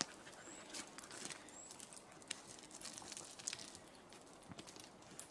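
Faint, irregular footsteps crunching on a forest path, with a few short high-pitched chirps in the first couple of seconds.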